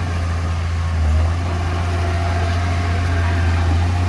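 Diesel engine of heavy earthmoving machinery running steadily with a deep, even drone, swelling slightly about a second in.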